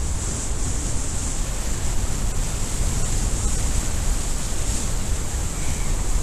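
Wind rushing over the microphone of a camera worn by a speedflying pilot in flight: a steady, buffeting wind noise with a heavy low rumble and a high hiss.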